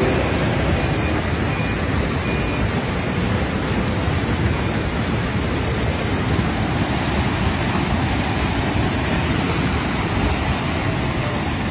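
Muddy flash-flood torrent rushing past in a steady, loud noise.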